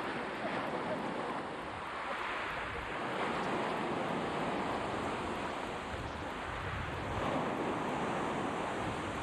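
Sea waves breaking and washing on the shore: a steady hiss of surf that swells and eases, louder twice as waves come in.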